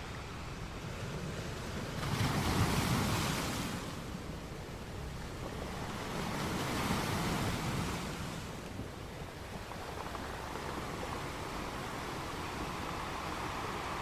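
Sea waves breaking against rocks on a beach: a loud surge about two seconds in, a second surge about six seconds in, and a steady wash of surf between and after.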